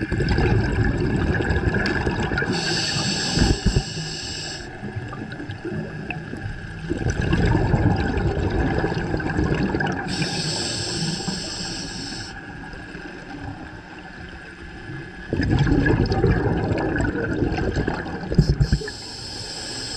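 Scuba diver breathing through a regulator, heard underwater: three hissing inhalations a few seconds apart, each alternating with a rumbling gush of exhaled bubbles.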